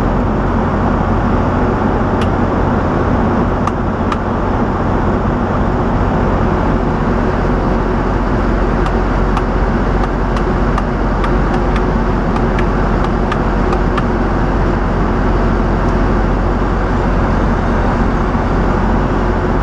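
Steady engine and road noise of a vehicle driving along, heard from inside the cab, with a few faint scattered ticks.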